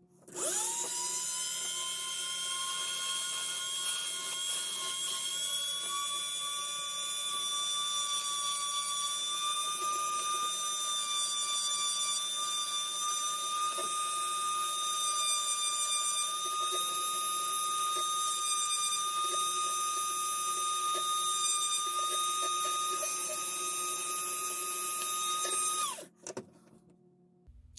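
Small electric drill spinning up and running with a steady high whine while boring a hole in a model's hull, then cutting off suddenly near the end.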